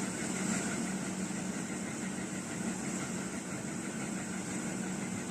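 Steady mechanical hum with a constant low tone over an even hiss, like an engine idling, with no distinct clicks or knocks.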